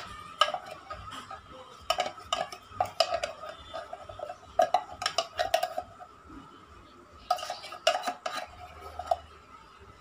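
A metal spoon scraping and tapping inside a tin can, clinking against the can and the bowl rim as the thick contents are emptied into a stainless-steel bowl. The clinks come in short clusters with a metallic ring.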